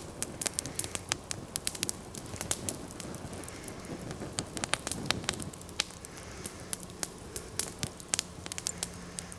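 Wood campfire of damp forest firewood crackling, with many irregular sharp pops and snaps.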